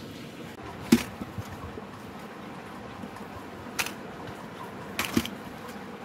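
A few sharp clicks or knocks over a steady low hiss: a loud one about a second in, a softer one near four seconds, and a quick pair about five seconds in.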